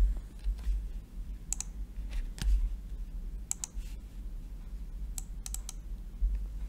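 Scattered clicks from a computer mouse and keyboard, single clicks with a quick run of three or four about five seconds in, over a steady low hum.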